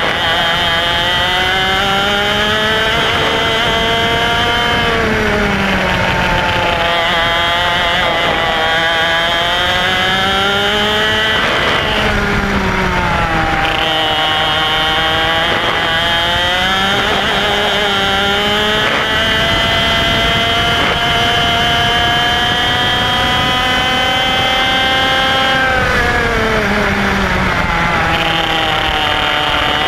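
IAME X30 125cc single-cylinder two-stroke kart engine at racing speed, its pitch climbing steadily for several seconds at a time and then falling sharply as the driver lifts off for corners, three times, before climbing again near the end.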